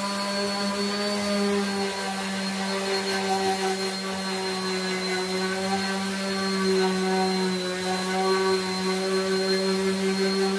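Electric random orbital sander running at a steady speed while it sands the willow blade of a cricket bat, giving an even motor hum that holds one pitch throughout.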